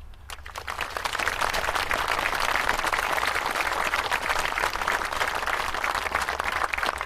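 Audience applauding after a speech, the clapping building up over the first second and then holding steady.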